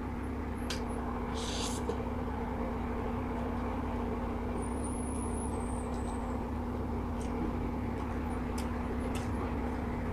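A steady background hum with a constant low droning tone, under a few faint clicks and a short rustle of someone eating noodles with a wooden utensil.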